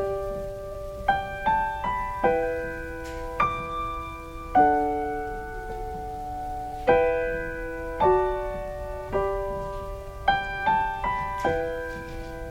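Solo piano playing slow, gentle chords and single notes. Each note is struck and left to ring and fade, as an introduction to a worship song.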